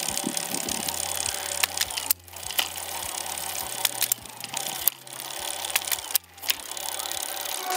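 Bafang e-bike conversion motor running with scattered clicks from gear changes. The motor cuts out for a split second twice, about two seconds in and about six seconds in: the gear shift sensor briefly cutting motor power during each shift.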